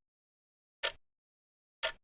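Clock ticking once a second for a countdown timer: short sharp ticks with silence between them.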